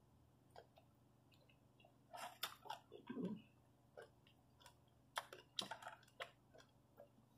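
A person chewing food close to the microphone: wet mouth sounds and short crunches in two spells, about two seconds in and again about five seconds in.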